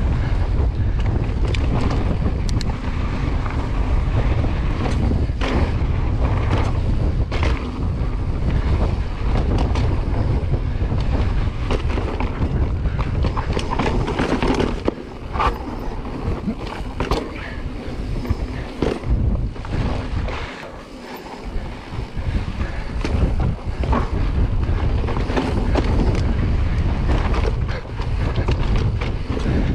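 Wind buffeting a chest-mounted GoPro microphone as a full-suspension mountain bike rolls over rocky trail, with frequent knocks and rattles from the tyres and bike hitting rock. The wind rumble eases briefly about twenty seconds in.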